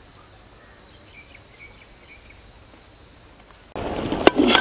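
Faint rural insect ambience: a steady high-pitched shrill with a few short chirps. About three and a half seconds in it cuts abruptly to louder noise from the pot of goat curry being stirred, with a sharp clack of the metal ladle against the pan near the end.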